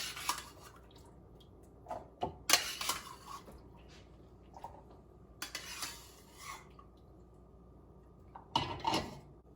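Kitchen clatter of a dish and spoon knocking and scraping, with some liquid pouring, as cooked chickpeas and their cooking water are added to a blender jar. It comes in four short bursts, about two to three seconds apart.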